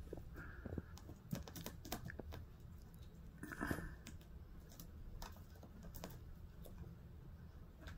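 Faint, scattered scratches and light clicks of a kitten's claws on fabric recliner upholstery as it paws and pounces in play, with a slightly louder scuffle about three and a half seconds in.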